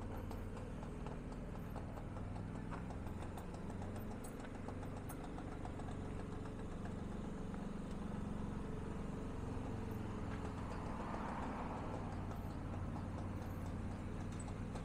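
Can-Am Defender 6x6 side-by-side's engine running at low speed as the vehicle drives slowly across pavement: a steady low engine note with a fine regular pulse, a little louder in the second half.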